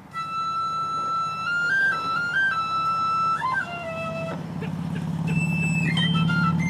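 Marching band performing: a high flute melody in short stepping notes enters at the start. About halfway through, the lower band swells in underneath, and the high melody returns near the end.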